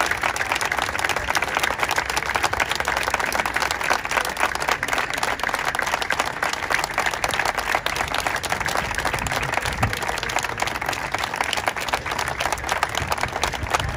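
A crowd of a few dozen people applauding, many hands clapping at once at a steady level.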